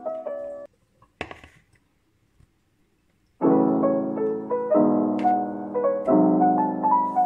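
Background piano music that breaks off for about three seconds; in the pause there is one brief knock.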